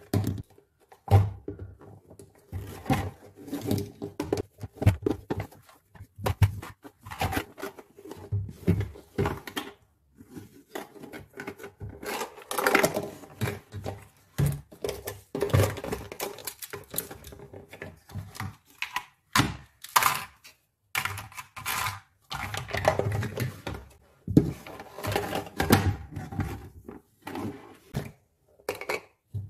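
Hard plastic toy kitchen pieces and utensils being handled: irregular clicks, clacks and rattles of plastic against plastic, with denser clattering in a few stretches.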